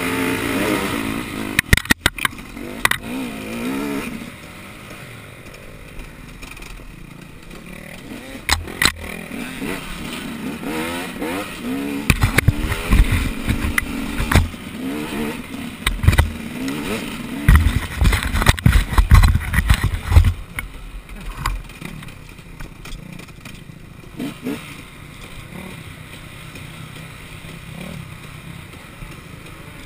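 Off-road racing engine revving up and down while running over rough ground, with clatter, sharp knocks and heavy low thumps, most of them between about twelve and twenty seconds in.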